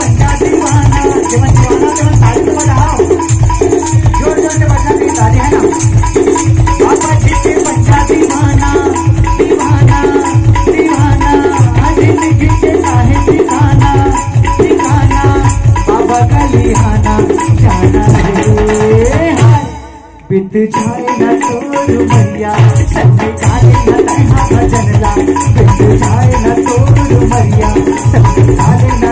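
Live folk band music with a steady driving beat: electronic drum pad struck with sticks, tambourine jingles, tabla, dholak and keyboard. About twenty seconds in, a rising glide leads into a brief stop of about a second, and the band comes back in.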